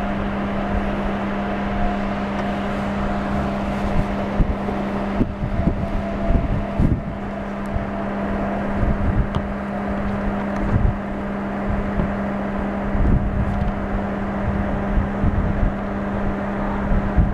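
Wind buffeting the microphone in repeated gusts over a steady low hum, with a faint higher steady tone fading in and out.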